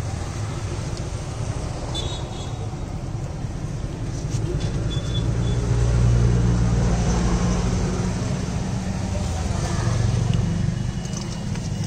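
Road traffic: a motor vehicle's engine running close by as a low rumble that swells around the middle and again near the end.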